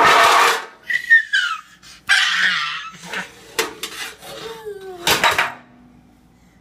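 Metal baking pans, a cake pan and a muffin tin, clattering and scraping on a tile floor as a toddler drops and pushes them: a loud crash right at the start, scraping and knocks in the middle, and another crash about five seconds in. Short falling squeals from the toddler come in between.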